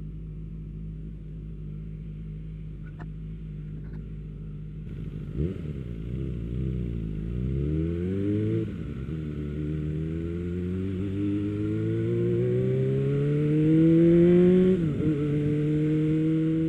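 Suzuki GSF250 Bandit's small inline-four engine idling, then pulling away about five seconds in and accelerating, its pitch climbing through two gear changes.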